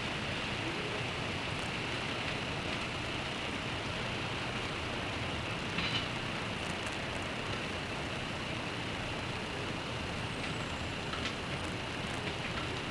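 Steady rain, with the hiss of traffic on a wet road beneath it and a few faint ticks of drops.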